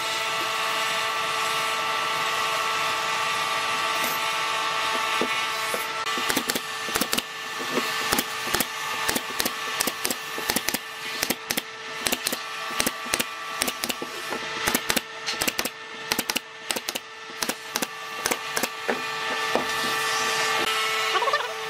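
Pneumatic nail gun firing into pine slats, sharp shots in quick irregular runs from about six seconds in, over a steady machine hum.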